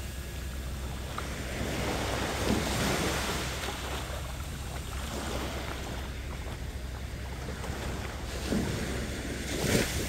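Small sea waves washing and lapping in the shallows, swelling louder about two to three seconds in and again near the end, over a steady low rumble.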